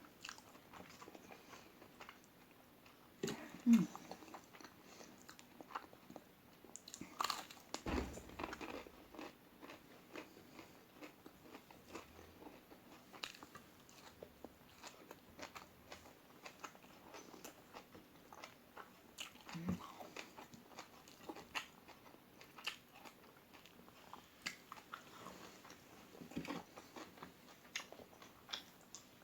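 Close-up eating sounds: bites and crunchy chewing of a crispy fried omelette, with many scattered short clicks and crunches. The loudest bites come about four and eight seconds in.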